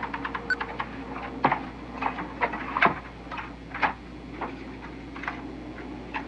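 Footsteps walking outdoors: short crunching steps, unevenly spaced about one every half second to a second, over a steady low hum.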